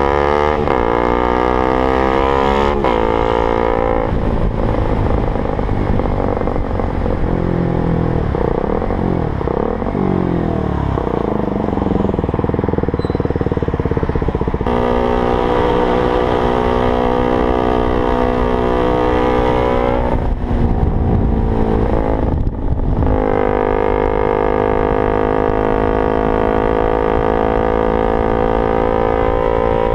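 KTM Duke 125's single-cylinder four-stroke engine through a LeoVince GP-style exhaust, ridden hard: the note rises through each gear and drops at every shift, with a stretch of slowing and uneven throttle in the middle and an abrupt change about 15 seconds in.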